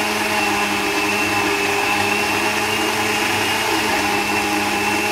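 Countertop blender motor running at a steady speed with an even whine, puréeing chopped fruit, carrot and yogurt into a smoothie.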